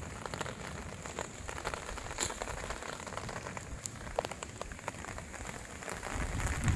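Rain falling, with scattered sharp drop ticks throughout; a low rumble comes in near the end.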